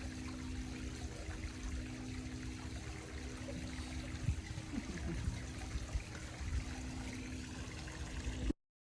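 Running water, like a trickling stream, with a few low steady tones held underneath, cutting off abruptly near the end.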